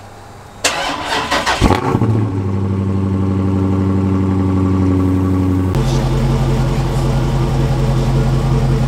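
A 2017 Dodge Charger Daytona 392's 6.4-litre HEMI V8 starting: a short burst of cranking and a loud flare as it catches, then a steady fast idle. About six seconds in, the note changes and settles deeper.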